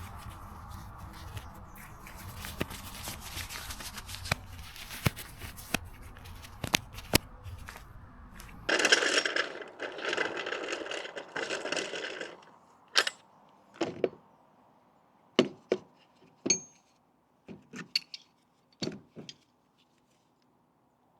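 Tools being handled, with scrapes and sharp clicks. About nine seconds in comes a hiss lasting about three and a half seconds, followed by a few separate knocks and clicks.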